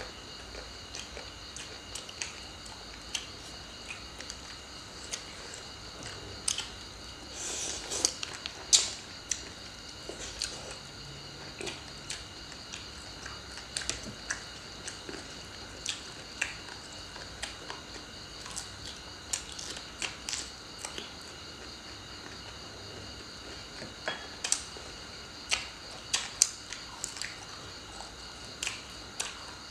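Close-up eating sounds: chewing and crunching of papaya salad and fresh vegetables, with scattered sharp clicks of chopsticks against plates and bowls, loudest in a cluster about a third of the way in.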